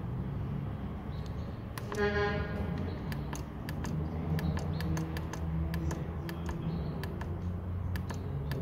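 Repeated sharp clicks of the push buttons on a Datakom D300 generator controller, pressed to scroll through its programming menu, over a steady low hum. A short honk-like tone sounds about two seconds in.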